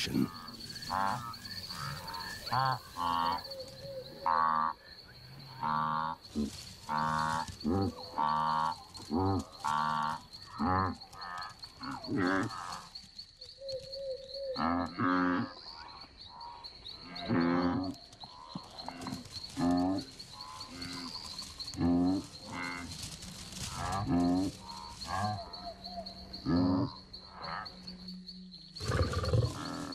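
Wildebeest herd calling in the dark: many short, nasal, cattle-like calls, about one a second from several animals, a few drawn out longer. A steady high-pitched insect trill runs behind them.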